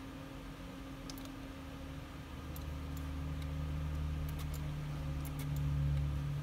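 Light computer mouse clicks, about ten scattered through, over a steady electrical hum and a low rumble that swells from about two seconds in.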